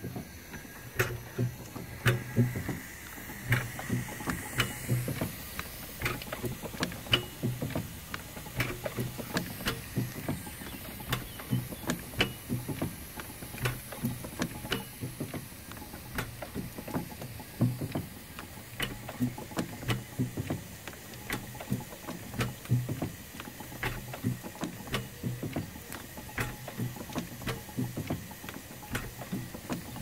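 Fowler K7 steam ploughing engine ticking over, its motion and exhaust giving a steady, even beat of sharp knocks over a low pulsing throb. Boiler pressure is dropping and the steam is very wet, as it is just before shutting down.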